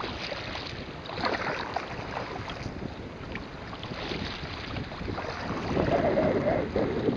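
Wind buffeting the microphone over choppy sea water splashing around a sea kayak, growing louder near the end.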